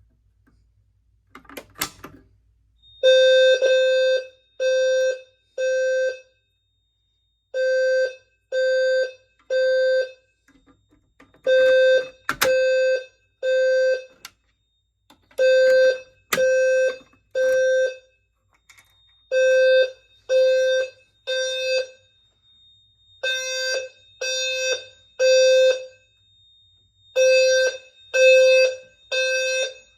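Fire alarm system in alarm after a manual pull station is pulled: System Sensor low-frequency sounder horn strobes sounding the temporal-3 evacuation pattern, three short low-pitched blasts then a pause, repeating about every four seconds. It starts about three seconds in, after a sharp click, and a faint steady high-pitched tone runs underneath for parts of it.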